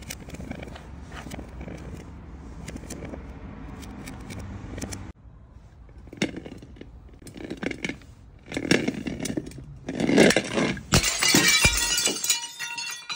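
A large glass jar full of wrapped chocolate bars knocking down concrete steps, each bump louder, then shattering about eleven seconds in, with glass shards and bars clinking and scattering. Before it, for about five seconds, only a steady background rumble.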